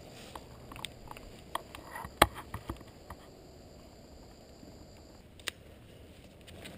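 Footsteps through tall dry weeds and grass: scattered crunches and snaps, with one sharp crack about two seconds in.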